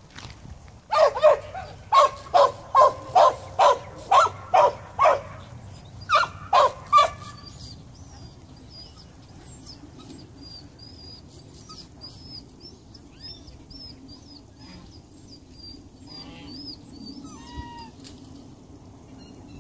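Dog barking in a rapid, regular run of about a dozen short, sharp barks over six seconds, with a brief pause before the last three. Faint high chirping follows.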